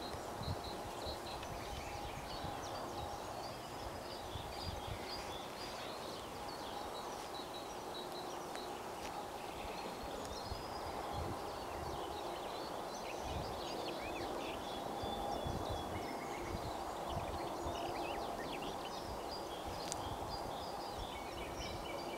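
Small birds chirping and singing, with low gusts of wind buffeting the microphone and a faint steady hum coming and going beneath.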